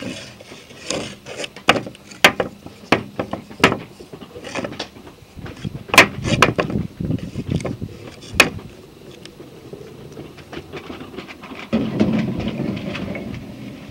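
Wooden blocks cut from boards knocking against each other and on a glass tabletop as a child handles and stacks them: a series of sharp, irregular knocks that thin out after about eight seconds.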